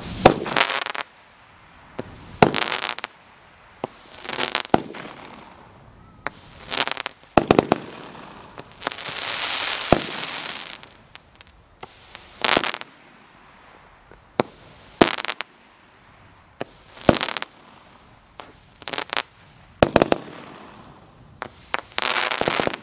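A NEMO 500-gram consumer aerial repeater cake firing shot after shot, roughly one every two seconds. Each shot is a sharp report or a quick cluster of cracks, with a longer hiss about ten seconds in and again near the end.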